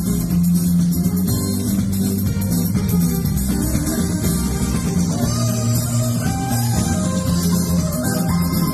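Live Roma band music played on a Korg electric keyboard, drum kit and electric guitar, with strong held bass notes.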